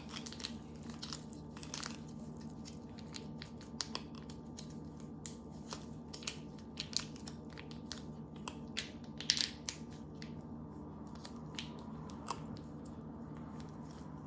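Faint, irregular small clicks and crunches of hard gingerbread and candy pieces being handled, over a steady low hum.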